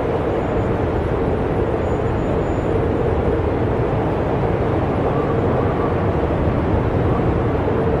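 Steady snowstorm wind: a continuous low rumble with a faint held howl above it, no gusts or breaks.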